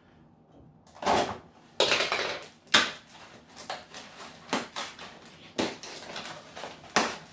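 A small cardboard box being cut and torn open by hand: irregular bursts of cardboard scraping and tearing, with a few sharper knocks.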